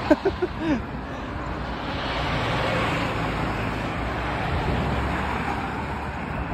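Steady rush of wind and road traffic noise heard while riding a bicycle beside a road, growing louder about two to three seconds in. A few short voice sounds right at the start are the loudest part.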